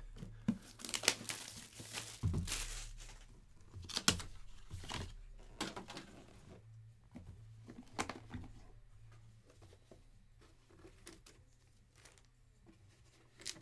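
Packaging crinkling and tearing, with cardboard handled, as a sealed trading-card box is unwrapped and its lid opened. The rustling is busiest in the first half and thins out toward the end.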